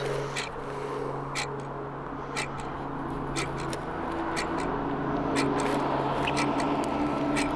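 Low steady drone of two held tones with soft ticks about once a second, and more tones joining in the second half, as in a film's ambient score.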